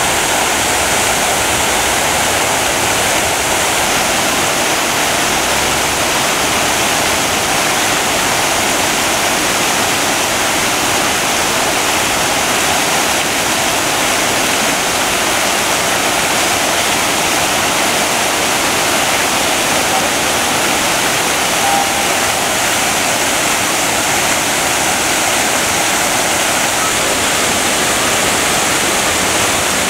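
Fountain jets running steadily: many vertical water columns and arching jets splashing back into the basin, a loud, even rush of water.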